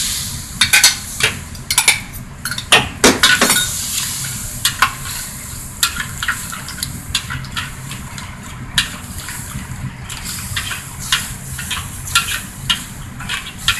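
Metal ladle scraping and knocking against a wok while stirring lemon sauce that sizzles and bubbles over high heat. The sizzle is strongest in the first few seconds and eases off, while the irregular knocks of the ladle go on.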